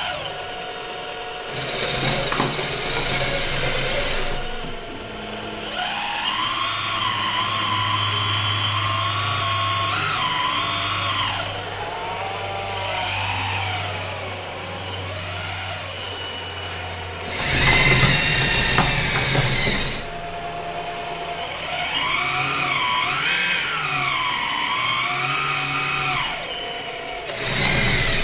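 Electric-driven hydraulic pump of a 1:14 scale Liebherr 956 RC hydraulic excavator whining as the boom, stick and bucket are worked, its pitch dipping and rising in arcs as the load changes, with a louder stretch about two-thirds of the way through.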